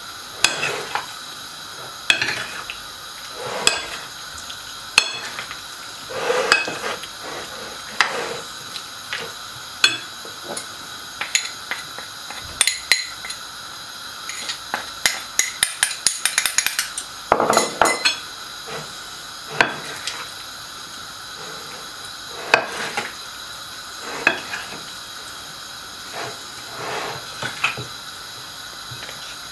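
Metal spoon clinking and scraping against a porcelain plate while tossing floured strips of beef liver. Midway there is a quick run of light taps as a spoon knocks against a small sieve to shake flour over them.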